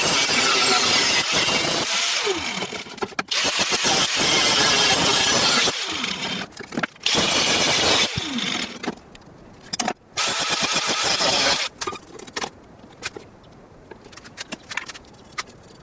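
Electric power tool run in several bursts with a loud grinding or sanding hiss, its motor whine falling in pitch as it winds down after each release. In the later part, only quieter scattered knocks and scrapes of workshop handling.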